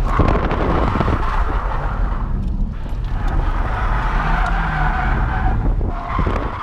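Nissan 240SX's KA24DE four-cylinder engine revving, rising and falling, while the tyres skid across the pavement during a drift attempt; the tyre noise comes in two spells with a short lull just before the middle.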